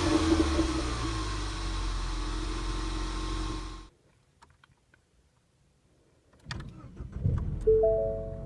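Ford Mustang EcoBoost's turbocharged four-cylinder engine on its stock exhaust, falling from a rev and settling to a steady idle, then cut off abruptly about four seconds in. After a few seconds of silence come a few clicks and then piano music near the end.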